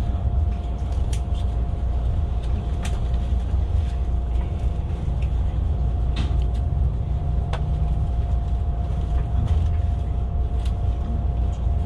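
Inside a Siemens S-103 (Velaro E) high-speed train coach: a steady low rumble with a thin steady whine, and scattered light clicks and rattles.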